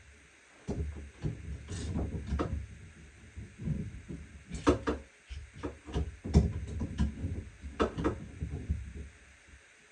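Irregular knocks, clicks and scraping of close-up hand work on plumbing, a part being fitted into place.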